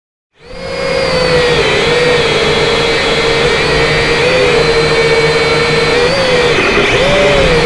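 M:TECH Sky Drone Plus toy quadcopter's motors and propellers whining in flight, heard close up from its own onboard camera. The sound starts suddenly about half a second in, then runs loud and steady, its pitch wavering up and down as the motors change speed.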